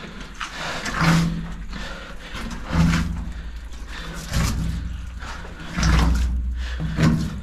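A man's heavy, strained breaths and grunts, about five of them spaced a second or two apart, mixed with scraping and rubbing of clothing and the camera against rock as he crawls through a very narrow tunnel.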